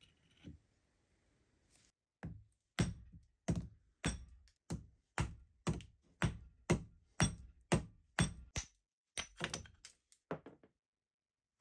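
Hammer blows on a steel punch driving the stuck remnant out of the eye of a rusty forged hammer head clamped in a vise. The sharp metal strikes come about two a second, start about two seconds in and stop shortly before the end.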